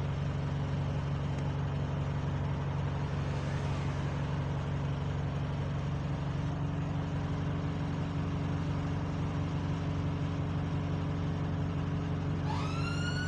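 A bus engine runs with a steady low hum, heard from inside the passenger saloon. Near the end, a siren starts up with a rising wail.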